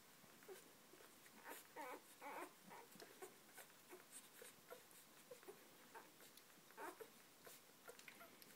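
Newborn puppies nursing at their mother: faint wet suckling clicks with a few short squeaks and whimpers, the loudest about two seconds in and again near seven seconds.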